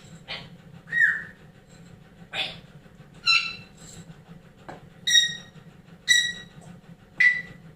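African grey parrot giving about seven short calls and whistles, roughly one a second. The first few are noisier calls; the later ones are clear pitched whistles.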